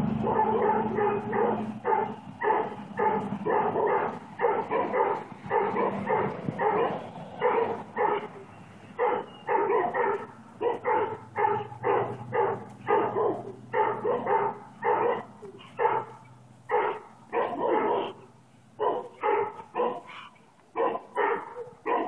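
A dog barking over and over, about two barks a second, with a few longer pauses near the end.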